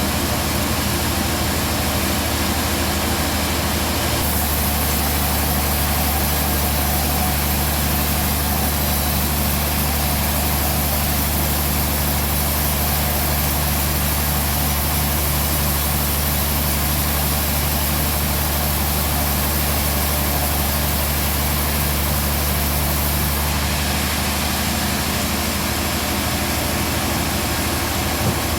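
Band sawmill running steadily, a motor hum with a hiss over it. From about four seconds in until about five seconds before the end, the hum and the high hiss both grow louder, then settle back.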